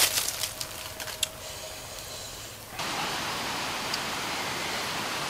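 Dry leaf litter crackling and rustling under a person as he settles down, the crackles thinning out. About three seconds in, the sound changes abruptly to a steady, even hiss of outdoor background noise.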